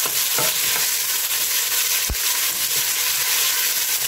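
Chopped red onions sizzling in hot oil in a stainless steel pot as they are stirred with a wooden spoon, with a few short knocks, the loudest about two seconds in.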